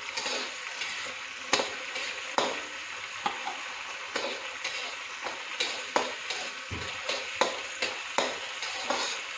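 Chopped capsicum and sweet corn sizzling in sesame oil in a kadai, with a steel slotted spatula scraping and knocking against the pan every half second to a second as they are stir-fried.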